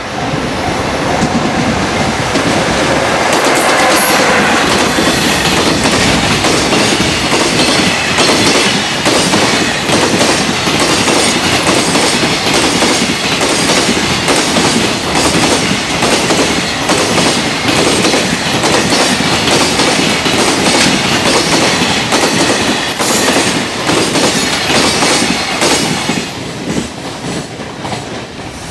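Long container freight train passing at speed, its wheels clattering over the rail joints in a rapid, unbroken run of knocks, the joint sound. The clatter eases about two seconds before the end as the last wagons go by.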